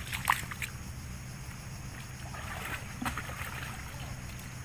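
A few soft clicks and small splashes, mostly in the first half-second, as a hooked rod is worked into flooded mangrove mud to draw out a catfish, over a steady low hum.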